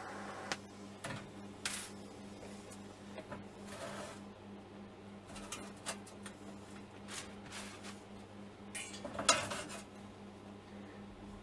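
Steel clinking and clanking as a welded rocket stove body and its wire legs are shifted on a steel bench plate, a scatter of sharp knocks with the loudest clank about nine seconds in. A TIG welding arc is hissing at the very start and cuts off about half a second in.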